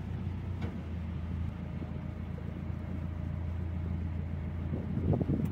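Narrowboat diesel engine running steadily at low speed, a constant low hum as the boat creeps forward.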